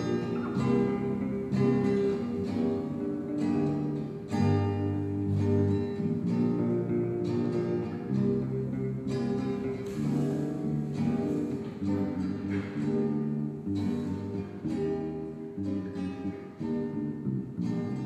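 Live instrumental duo of a nylon-string acoustic guitar, strummed and picked, and an electric bass guitar playing low notes underneath.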